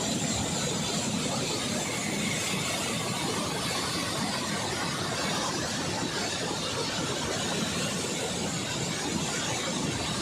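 Water rushing steadily out through the open dam spillway gates, a constant even roar with no breaks.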